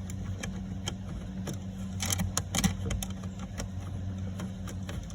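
Light scattered clicks and a few louder knocks about two seconds in, from the 8 mm bolts going back into a plastic under-glove-box trim cover, over a steady low hum.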